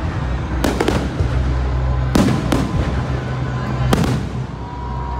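Aerial fireworks shells bursting overhead. There are about five sharp bangs: a pair a little under a second in, another pair just after two seconds, and one near four seconds, all over a steady low rumble.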